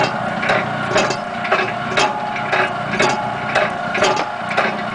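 Old Easy wringer washing machine running, with a steady motor hum and a regular clack from its gearing about twice a second.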